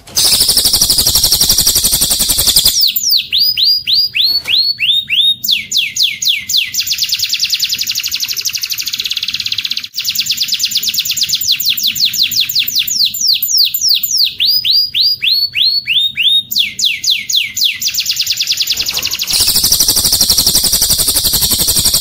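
Cililin bird song run on into canary song: fast, dense high trills alternating with runs of quick downward-sweeping whistled notes, about four a second, with no pause longer than a moment.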